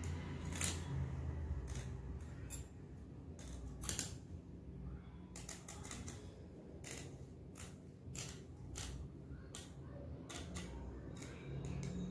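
Scissors cutting through cotton cloth in a long run of irregular, crisp snips.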